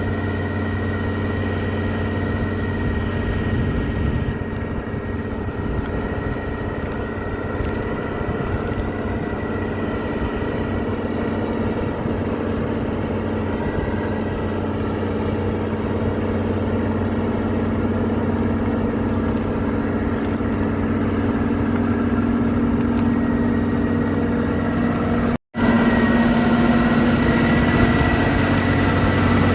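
Combine harvester running steadily, a constant engine drone with a thin high whine over it. It cuts out briefly about 25 seconds in and comes back louder.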